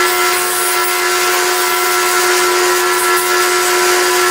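A 12-inch disc sander running steadily with an even, high whine over a hiss, while the edge of a wooden disc is sanded round against it.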